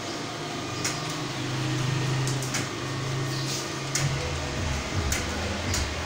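A steady low hum with a handful of scattered short clicks and soft swishes.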